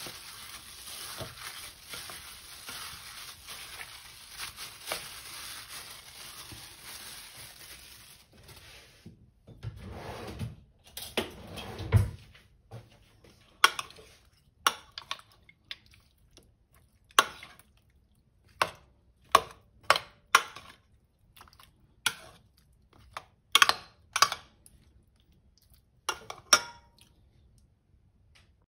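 A gloved hand squishes and mixes raw pork belly pieces in a soy-vinegar marinade in a stainless steel bowl. About halfway through, a metal spoon takes over, clinking sharply against the bowl a dozen or so times as it stirs.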